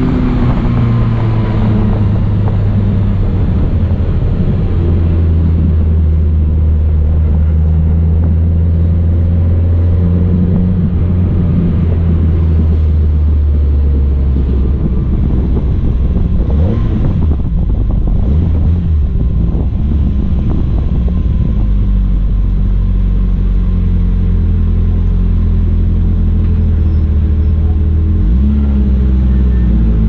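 BMW E30 rally car's engine running steadily at low revs as the car rolls slowly, its deep note stepping up or down in pitch a few times.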